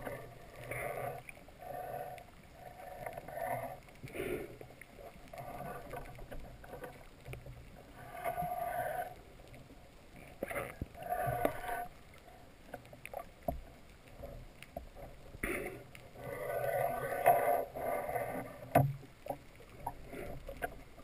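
Muffled underwater noise heard through a dive camera's housing: irregular gurgling bursts, each about a second long, and scattered faint clicks, with the longest burst near the end.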